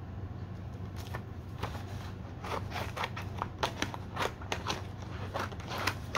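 Construction paper being handled and set down on a table: a string of small, irregular crackles and taps, a few a second, over a low steady hum.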